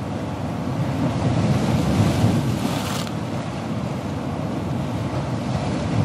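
Ocean surf: a continuous rush of breaking waves that swells to a peak about two seconds in, with a brief hiss of spray about three seconds in.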